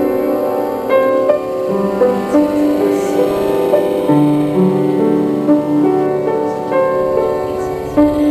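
Slow, gentle piano music: long held notes in chords over a low bass line.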